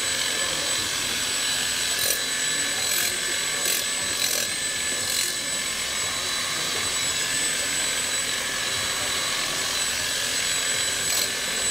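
Red Hilti power tool running steadily with a high whine as it cuts out smouldering expansion-joint material between two buildings, with a handful of sharp clicks a few seconds in and one more near the end.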